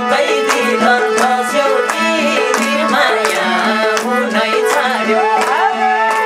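Live Nepali dohori folk music. A madal drum beats a steady rhythm under singing and a held drone note, with hands clapping along.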